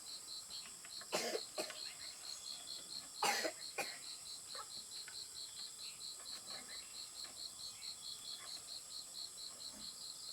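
An insect chirps steadily in rapid, even pulses, several a second, with two short, loud noises about two seconds apart near the start.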